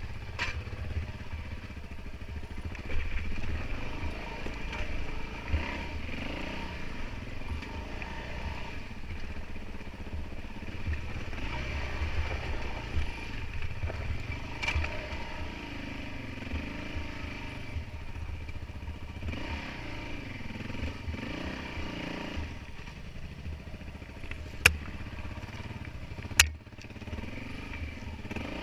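Kawasaki KLX400 dirt bike's single-cylinder four-stroke engine running as it is ridden along a dirt single-track trail, revs rising and falling. Near the end come two sharp knocks, under two seconds apart.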